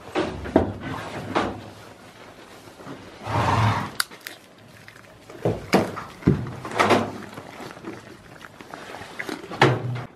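Irregular knocks and thumps against the boards and wire mesh of a wooden goat pen as goats move and push against it. A rougher sound about half a second long comes a little over three seconds in.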